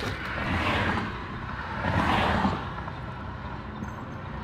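Road traffic passing the stopped car: two swells of vehicle noise about a second and a half apart, over a steady low hum.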